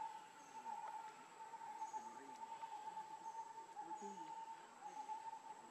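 Faint outdoor ambience: insects droning steadily, with a short high chirp repeating about once a second.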